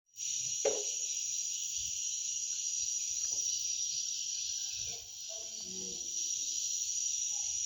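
Steady, unbroken high-pitched chirring of insects, with a single short knock about 0.7 s in.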